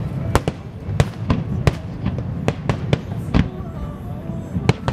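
Aerial firework shells bursting in a heavy barrage: about a dozen sharp bangs at irregular intervals, over a continuous low rumble.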